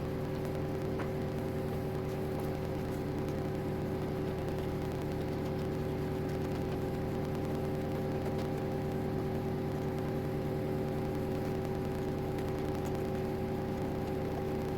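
CNC router running steadily: a constant motor hum with a few steady whining tones over a low rumble, unchanging throughout.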